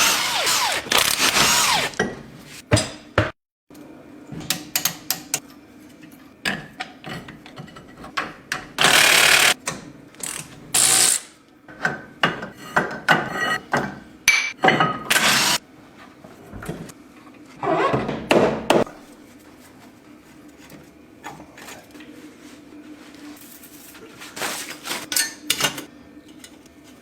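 Hand tools working on car brake parts: ratchet clicks, metal clanks and knocks, with a few short noisy bursts about a second long and a faint steady hum underneath.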